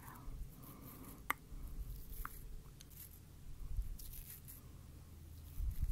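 Eyebrow makeup tools worked close to the microphone: light brushing and scratching strokes with a sharp click about a second in and a smaller tick a second later.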